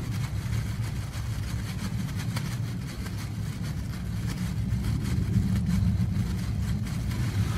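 A steady low mechanical hum, like an engine or motor running, with a few faint light clicks.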